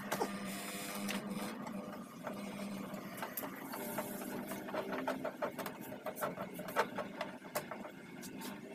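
A small electric motor whirring steadily, with many sharp clicks and rattles of metal parts over it.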